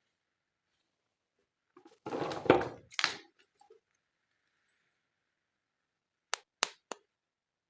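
Handling noise from unboxing plastic toy animals: a rough, rustling burst lasting about a second, about two seconds in, then three sharp clicks in quick succession near the end.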